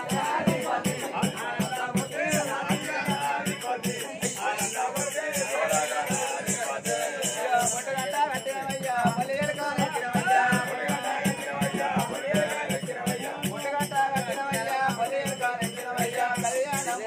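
Oggu Katha folk ballad singing: sung or chanted voice over an even percussion beat of about three strokes a second, a low drum stroke with a jingling, rattling top.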